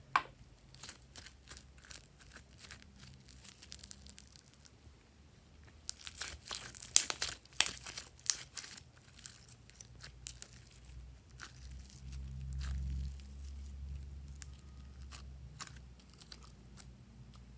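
Red slime with foam beads squeezed and stretched by hand, giving sticky crackles and popping clicks, thickest about six to nine seconds in.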